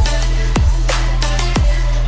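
Loud electronic dance music with a heavy kick drum about twice a second over a deep, sustained bass line.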